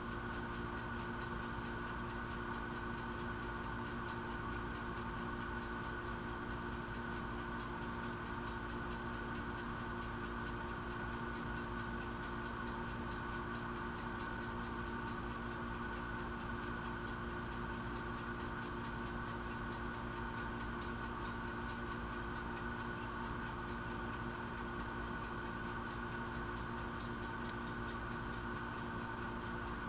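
A steady hum of several held tones, one low and one higher, with a fast, even ticking running through it.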